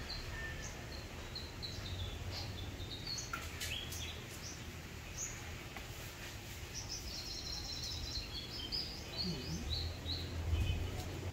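Small birds chirping repeatedly, short high calls scattered throughout, over a steady low background rumble, with a few faint clicks a few seconds in.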